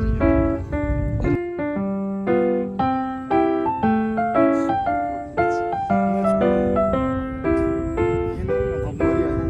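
Background music: a melody of separate struck keyboard notes in a repeating pattern, with a low rumble beneath it that stops about a second and a half in.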